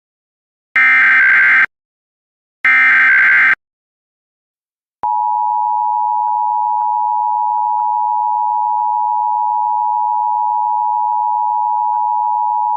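Emergency Alert System test: the last two of the three screeching SAME header data bursts, each about a second long, then after a short gap the steady two-tone EAS attention signal (853 and 960 Hz), held for about eight seconds.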